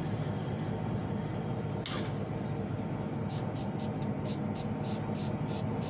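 Hand pump spray bottle squirted rapidly onto a dog's wounded leg, about four short sprays a second from about halfway in, after a single longer hiss about two seconds in, over a steady low background noise.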